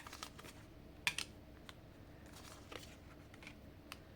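Tarot cards being handled and laid out: a few faint, scattered clicks and taps of card on card and on the table.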